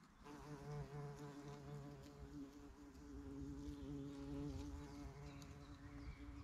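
A flying insect buzzing close by, a faint hum that wavers slightly in pitch, starting just after the beginning and fading near the end.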